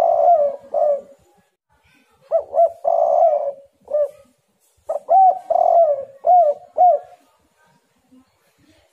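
Spotted dove (tekukur) cooing: three phrases of several rising-and-falling hooted coos each, separated by short pauses.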